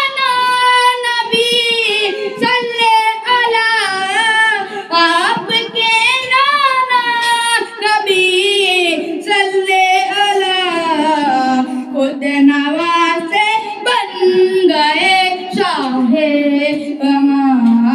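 A boy singing an Urdu devotional salam to Ghaus-e-Azam into a handheld microphone, without instruments. His long, ornamented melodic phrases settle onto lower held notes near the end.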